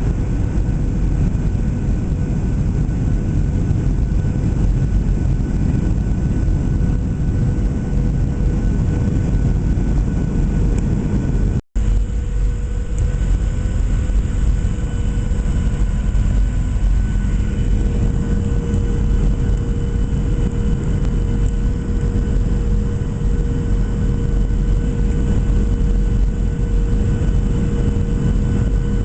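Cabin noise inside a Boeing 737-700 in flight: a steady, loud rumble of airflow and CFM56 engines with several steady whining tones. The sound cuts out briefly about twelve seconds in, and the engine tones shift a little after that.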